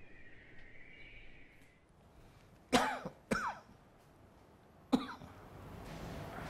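A person coughing and clearing their throat: two coughs close together a little under halfway in, then another short one about two seconds later.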